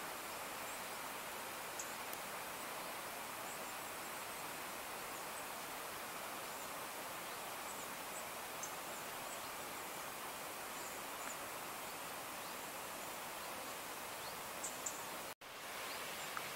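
Steady outdoor rural ambience: an even rushing hiss with faint, short, high chirps now and then. The sound cuts out for a split second near the end.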